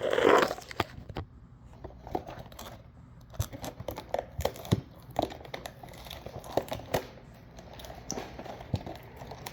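Headphone box packaging being handled: crinkling plastic or cardboard with scattered light taps and clicks, busiest in the first half second.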